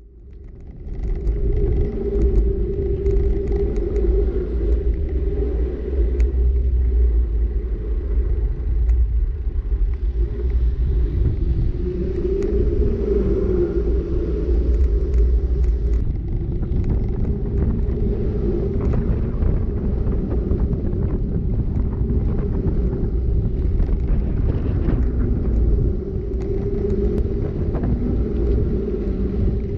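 Wind rumbling on the microphone of a handlebar- or helmet-mounted action camera, with mountain-bike tyres rolling on asphalt and small scattered rattles from the bike; the sound fades in over about the first second.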